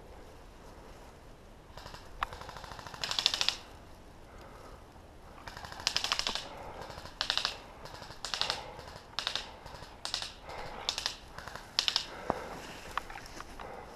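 Footsteps crunching through dry twigs and brush, with spruce branches scraping past, in crackling bursts roughly once a second from about two seconds in.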